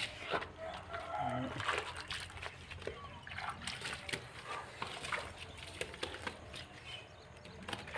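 Wet wall putty being mixed by hand in a plastic bucket, with irregular wet splashing and slopping as the hand works through the paste.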